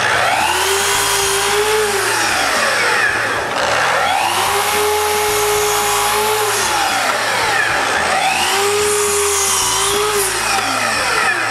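Festool sliding miter saw cutting scrap wood strips, three times in a row. Each time the motor spins up, holds speed through the cut, then winds down.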